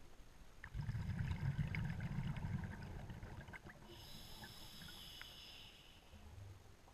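A diver breathing through a scuba regulator underwater. A low bubbling rumble of exhaled air comes first, then after about four seconds the hiss of the next inhalation, with a few small ticks.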